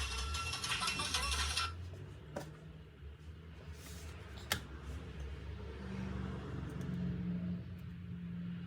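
A busy, many-toned clattering sound that stops about two seconds in, then a few sharp clicks of small hard parts being handled over a steady low hum.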